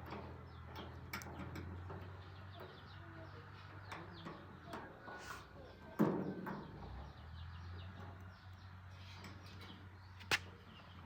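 A steady low hum under scattered small clicks and knocks, with one louder knock about six seconds in and a sharp click near the end.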